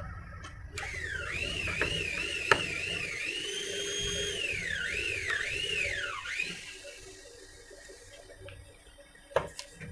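A high warbling whistle that swoops up and down over and over, about two or three swoops a second, holding one steady note briefly in the middle, for about six seconds. A sharp click comes partway through, and a couple of clicks come near the end.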